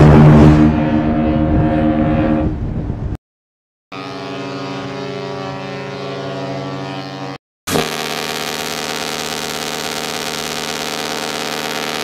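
Ship's horns sounding one after another. A loud blast from RMS Queen Elizabeth 2 fades and stops about three seconds in. After a short gap, SS Norway sounds a steady blast of about three and a half seconds, several pitches at once like a chord. After another brief break comes a second long, steady horn blast of about five seconds from a cruise ship.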